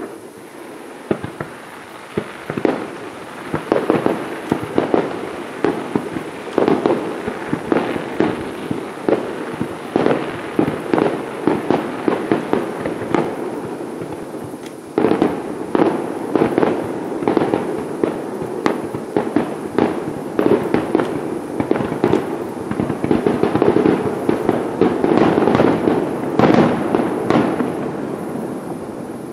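Fireworks display barrage: shells bursting in quick succession, many sharp bangs a second over a continuous crackle. It starts suddenly, thins out about halfway, then a second, denser volley builds and tails off near the end.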